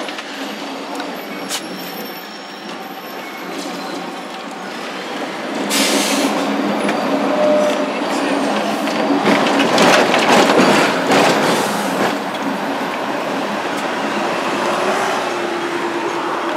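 Hong Kong double-decker tram running along its street track, heard from the upper deck: a steady rumble and rattle of wheels on the rails with a motor hum. It grows louder from about six seconds in and is loudest around ten to twelve seconds. A steady hum rises slightly near the end.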